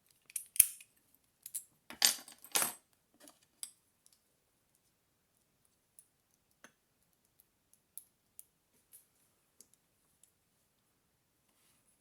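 A homemade lock pick working a Master Lock 150 padlock: metallic clicks and short rattles of metal on metal in the first few seconds, then only occasional faint ticks as the pick works the pins.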